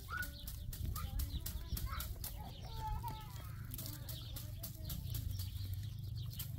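Dry broom-grass stalks rustling and crackling as they are handled and sorted, with a few short bird calls mixed in over a steady low background rumble.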